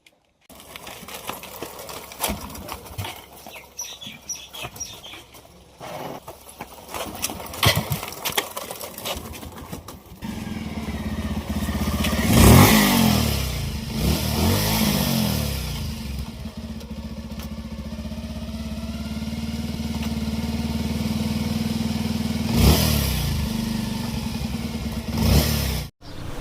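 Bajaj Pulsar 150's single-cylinder engine being push-started because the electric starter won't turn it over on a cold morning: irregular clicks and scuffing while the bike is rolled, then the engine catches suddenly about ten seconds in and runs, blipped up in a few short revs.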